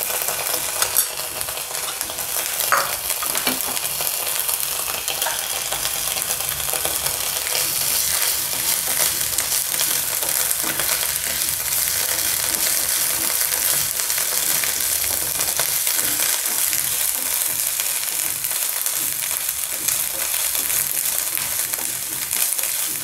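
Chopped onions, curry leaves and ginger-garlic paste sizzling steadily in coconut oil in a nonstick frying pan, stirred with a wooden spatula that scrapes and taps against the pan now and then.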